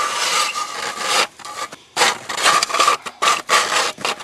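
Hand-cranked ice auger's blades shaving through lake ice: a loud, grinding rasp that stops briefly a little after a second in, then returns as a string of short scraping strokes.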